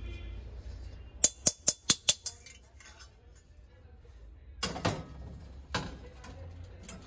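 Metal clinking from a hammered copper kadhai with ring handles being handled: a quick run of about six sharp clicks, then a few louder clanks near the end as it is set down against other brass and copper vessels.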